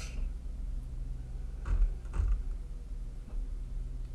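Steady low hum of room tone, with a short hiss at the very start and two soft knocks about two seconds in.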